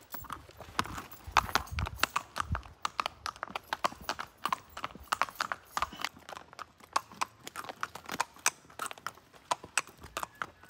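Horse's hooves clip-clopping on a paved road: a steady run of sharp hoofbeats, several a second.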